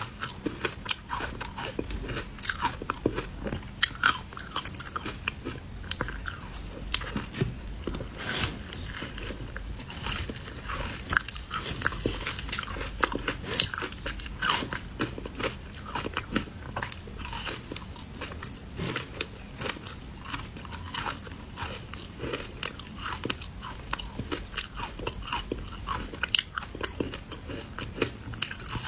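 Biting and chewing clumps of matcha-powdered ice: a dense run of sharp, irregular crunches as the ice cracks between the teeth.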